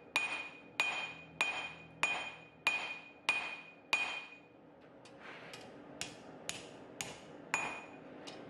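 Blacksmith's hand hammer striking hot mild steel on an anvil, drawing a tab down to its final thickness: seven steady blows, one about every two-thirds of a second, each with a bright anvil ring. After a short pause comes a run of lighter blows with little ring.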